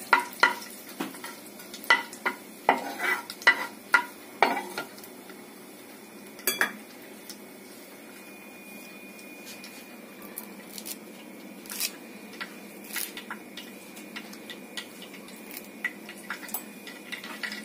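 Panch phoron and asafoetida sizzling in hot oil for a tadka, with a metal spoon stirring and clinking against the pan. Sharp clinks come thick in the first five seconds, then the sizzle goes on more evenly with only occasional clinks.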